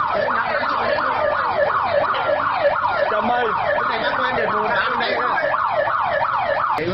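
Emergency vehicle siren in a fast yelp, its pitch sweeping quickly up and down about three times a second.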